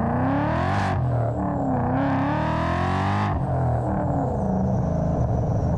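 2017 Mustang's supercharged engine through a cat-less 3-inch exhaust, accelerating hard: the revs climb, drop at a gear change about a second in, climb again and drop at another shift a little past three seconds.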